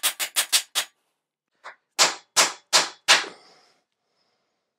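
3D-printed plastic ball peen hammer striking a nail into a pine board. A quick run of about six light taps in the first second, then after a pause four louder blows about a third of a second apart.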